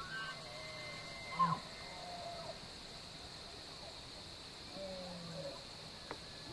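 Bull elk bugling, a rut call: a high whistle held for about a second just after the start, falling into lower tones, and a fainter call about five seconds in.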